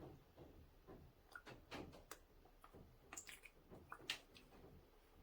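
Faint, scattered clicks and light knocks of small items and packaging being handled.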